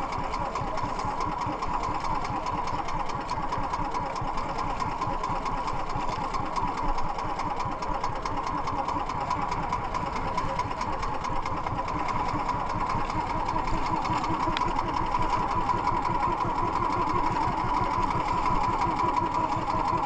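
Engine of a motorized outrigger fishing boat running steadily under way, a fast even chugging with no change in speed.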